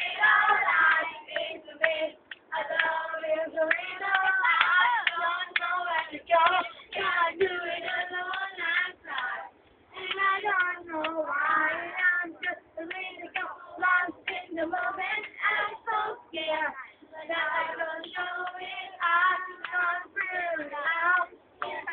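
Group of young children singing a sing-along song together.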